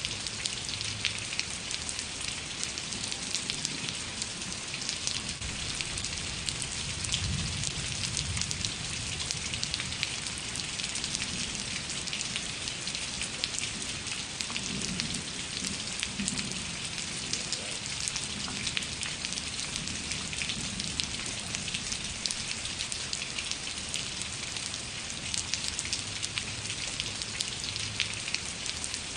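Steady rain falling, with many close individual drops pattering on a surface.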